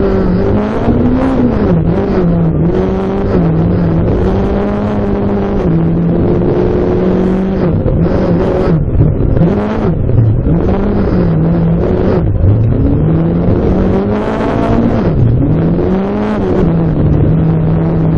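Rally car engine heard from inside the cabin at full stage pace, its pitch climbing and dropping over and over as the driver shifts and lifts for corners, with a few sharp dips midway. Tyre and gravel noise runs underneath.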